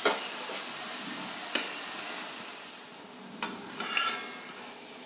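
Besan sev deep-frying in oil in a metal kadai, giving a steady sizzle. A few sharp clinks of a perforated metal spoon against the pan break in: one at the start, one about one and a half seconds in, and the loudest, with a brief ringing clink, at three and a half to four seconds in as the sev is turned.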